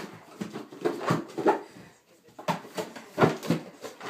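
A golden retriever nosing, pawing and biting at a cardboard cereal box. The box gives short, sharp knocks, scrapes and crinkles, in two quick runs with a short pause between them.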